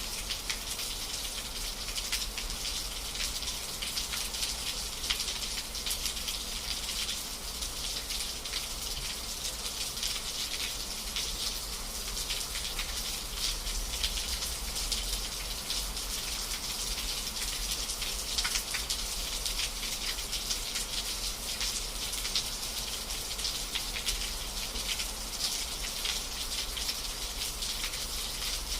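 Steady rain, dense raindrop patter with a continuous hiss and no break.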